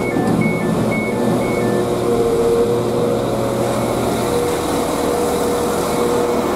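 Train door warning beeps, a two-tone alternating beep that stops about two seconds in as the doors open. Then a steady hum of trains standing at the platform, with station noise.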